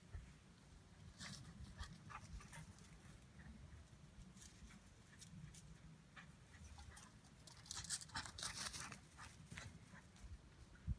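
Two dogs, a small dog and a Romanian shepherd dog, running and playing on grass: faint, irregular short rustles, busiest about eight seconds in.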